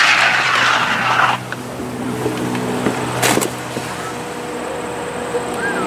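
Skis hissing down the ski jump's in-run track, cutting off sharply about a second and a half in as the jumper leaves the takeoff. A single sharp knock follows about two seconds later.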